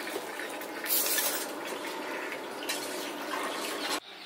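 Water splashed from a steel tumbler onto a hot dosa griddle, hissing and sizzling, with two louder bursts. The sound cuts off suddenly near the end.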